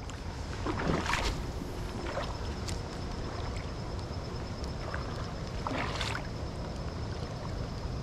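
A spinning rod being cast and worked: brief swishes about a second in, around two seconds and near six seconds, over a steady outdoor hiss of breeze and creek water with a faint steady high tone.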